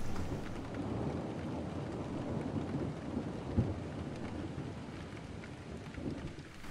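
Steady rain falling with a low rumble of thunder, and a single thud about halfway through.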